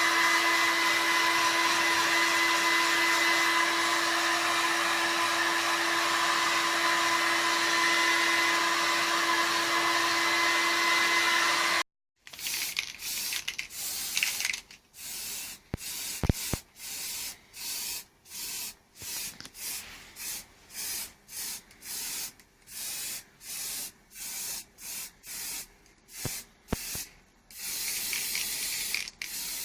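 A steady whirring power tool or blower runs, then stops abruptly. After a short break comes a long run of rhythmic hand-rubbing strokes, a little over one a second, as a part is scrubbed or sanded by hand.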